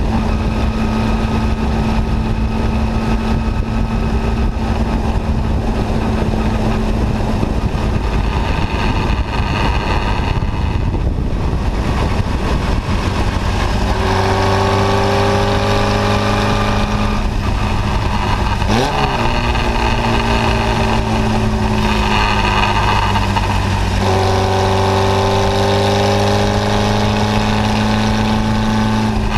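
Onboard sound of a Formula Junior single-seater's engine at racing speed, with wind noise in the open cockpit. It holds steady at high revs at first, then from about halfway climbs in pitch as it pulls through the revs, with a quick drop and recovery in pitch, and climbs again near the end.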